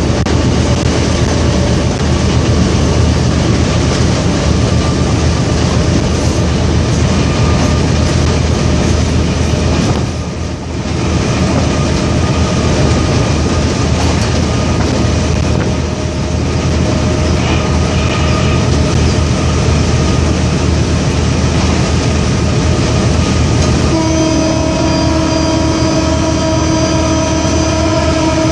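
Diesel-electric locomotive running under way, heard from its cab: a steady low engine hum over the noise of the wheels on the rails. Near the end a steady pitched tone comes in and holds.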